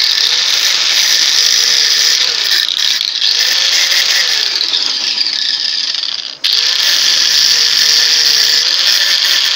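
Angle grinder with a cut-off disc cutting through a motorcycle engine's threaded cylinder stud, a loud, steady high-pitched screech of disc on metal as the excess length is trimmed off. The sound breaks off briefly about six seconds in and starts again at once.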